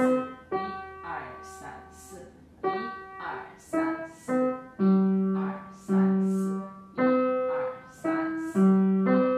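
Upright piano playing a simple beginner's melody of single notes in an even beat, with longer held low notes in the second half, while a woman counts the beats aloud in Mandarin.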